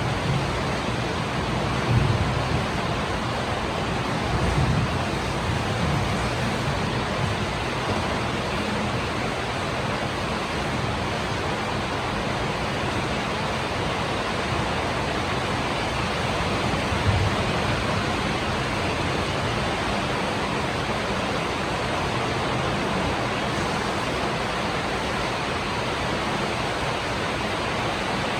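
Steady heavy rain, a dense even hiss. A few brief low rumbles come in the first few seconds and once more about two-thirds of the way through.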